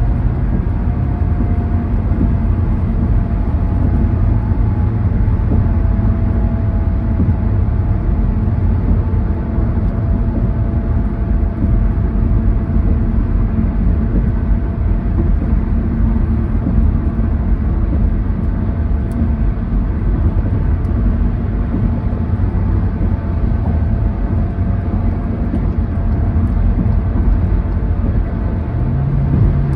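Steady road noise heard inside a car moving at highway speed: a low rumble of tyres and engine with faint steady hums. A deeper hum swells briefly near the end.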